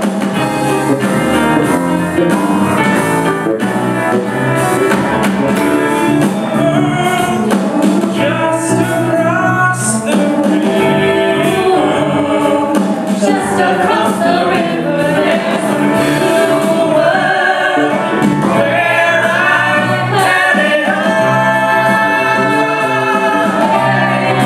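A live band and singers performing a musical-theatre song: a man sings the lead into a microphone, with women's backing vocals over piano, electric guitar and drums.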